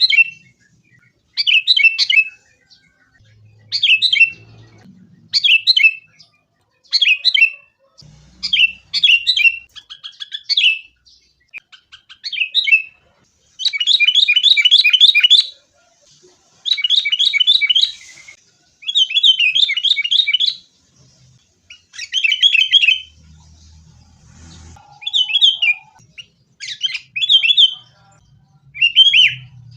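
Sooty-headed bulbul calling over and over in short, quick phrases, about one every second or so, with longer runs of fast chattering notes in the middle.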